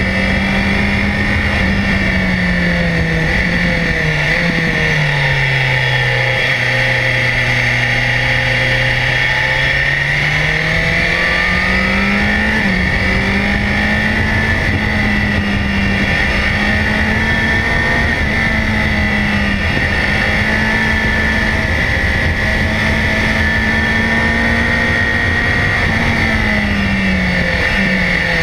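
BMW S1000XR motorcycle's inline-four engine running under way. The revs drop a few seconds in, stay low for several seconds, climb back and hold steady, then fall again near the end.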